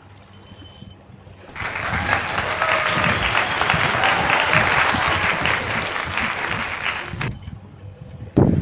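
Crowd applause sound effect, dense clapping that starts abruptly about a second and a half in and cuts off sharply about six seconds later. Low wind rumble runs underneath.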